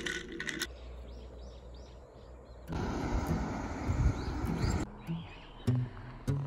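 Small birds chirping repeatedly outdoors, with a vehicle passing on the road for about two seconds in the middle.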